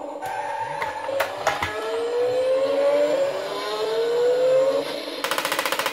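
Small battery-powered motor and gears of a Hot Wheels Formula Fuelers Skyforce launcher toy whirring, with a few sharp clacks about a second in and a whine that rises twice as the launch ramp goes up. Near the end comes a fast, even clicking, the noise this toy makes when it keeps running while its wheels are held up off the table.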